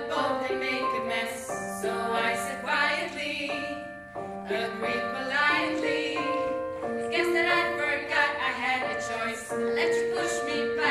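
A choir singing in harmony: several voices hold steady chord notes while a melody moves over them in sung syllables.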